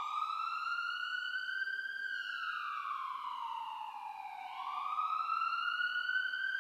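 A siren wailing slowly: its pitch climbs, sinks gradually for about two seconds, then climbs again.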